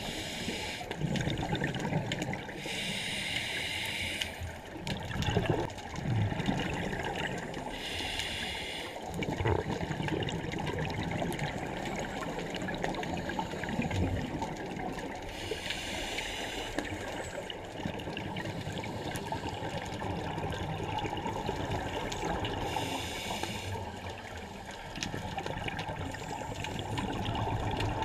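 A scuba regulator breathing, recorded underwater: four hissing inhalations spaced about six to seven seconds apart, with the bubbling rush of exhaled air between them.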